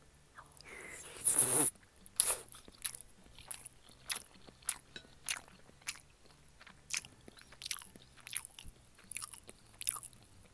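Close-miked wooden spoon scooping soft scrambled eggs in a ceramic bowl. A loud rustling scoop comes about a second in, followed by a run of short, sharp, moist clicks and light taps, roughly two a second.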